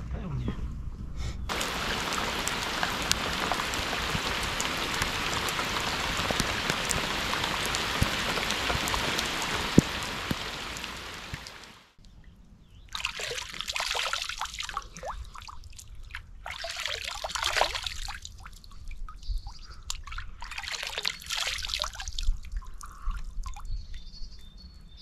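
About ten seconds of steady, heavy rain that fades out. Then hands splashing and rinsing in lake water, in several swells of a second or two each.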